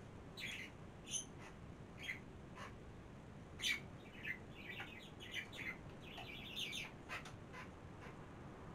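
Small birds chirping in short, scattered high calls, thickening into a quick run of chirps about five to seven seconds in.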